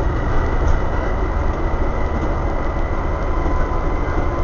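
Inside a Volvo B7TL double-decker bus on the move: the steady drone of its diesel engine and driveline with road rumble, and a faint steady high whine.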